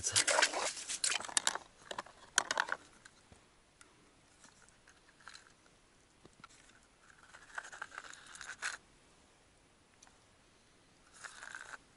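Crunching and rattling as fishing gear is handled by someone kneeling in snow. It is loudest in the first three seconds, while a plastic ice-fishing tackle box is rummaged and its lid shut. Then come fainter, scattered rustles and clicks while a small ice-fishing rod is readied.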